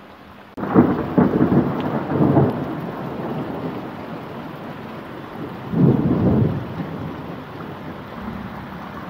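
Thunder during a thunderstorm: it breaks suddenly about half a second in and rumbles for a couple of seconds, swells again near six seconds, then dies away.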